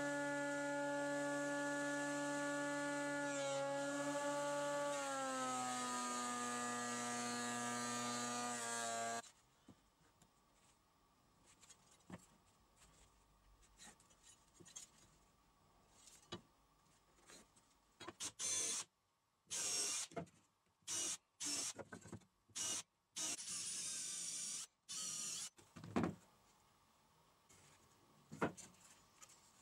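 Electric thickness planer running, its motor pitch sagging as a board feeds through under load, then cutting off after about nine seconds. Later, light knocks of handling wood and several short bursts of a cordless drill.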